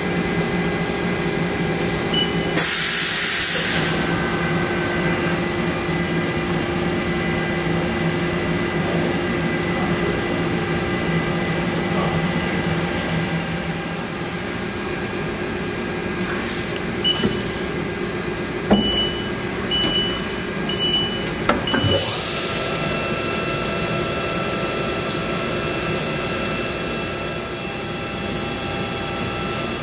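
Haas ST-15Y CNC lathe running with a steady machine hum and several held tones. There is a short burst of hiss about 3 seconds in and another around 22 seconds, and a string of short, high beeps between about 17 and 21 seconds.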